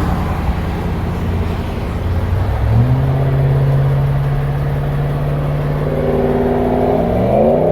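Vehicle engine running steadily. Its pitch steps up about three seconds in, holds, then climbs again near the end.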